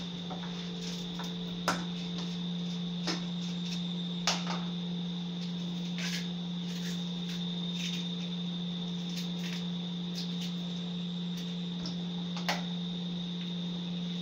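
A steady low hum with a thin high whine, and scattered light clicks and taps of a knife and green banana peel against a bowl as bananas are peeled, a few of them sharper.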